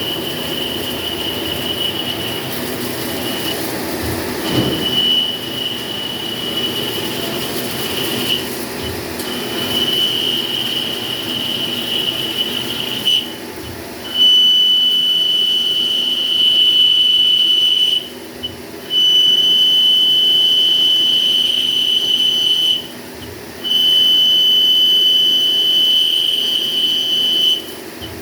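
CNC machine running with a high, steady whine that stops and restarts every few seconds after short breaks, over a lower mechanical hum that fades about halfway through.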